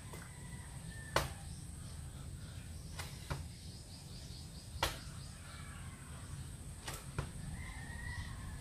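Hands and feet thudding on the floor during burpees, about one landing every two seconds, some coming in quick pairs a third of a second apart.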